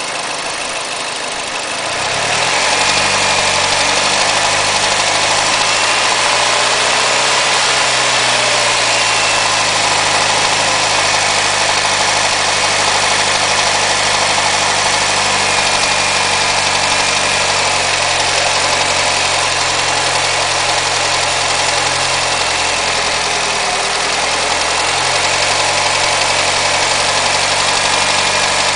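Mazda 6 MPS's 2.3-litre turbocharged four-cylinder engine running steadily at about 1500 rpm with a knocking clatter. It gets louder about two seconds in, with slight rises and falls in engine speed.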